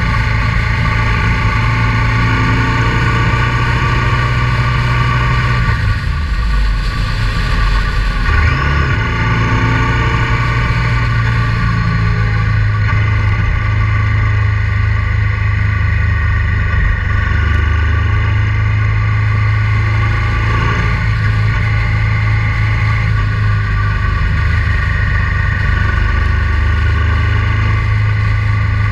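Honda Transalp 650's V-twin engine running steadily while the motorcycle is ridden, its note briefly breaking and dipping between about six and nine seconds in before settling back to a steady drone.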